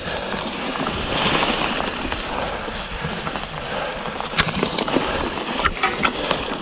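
Electric mountain bike tyres rolling and splashing through wet, sloppy trail mud, with a few sharp knocks from the bike over rough ground.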